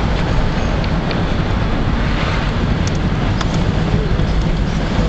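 Steady engine and tyre rumble heard inside a car's cabin while driving slowly, with a few faint ticks.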